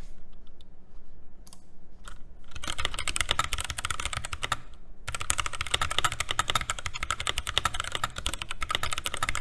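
Keychron K6 wireless mechanical keyboard with Gateron Brown switches being typed on, stock and unlubed. A few scattered keystrokes at first, then fast, continuous clacking from about two and a half seconds in, with a brief pause around the middle.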